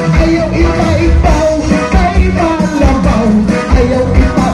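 Live band playing a cha-cha-cha, with a singer's voice over a steady, pulsing beat.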